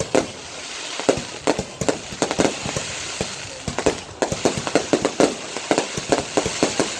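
Fireworks going off: a rapid, irregular string of sharp bangs, several a second, with crackling between them.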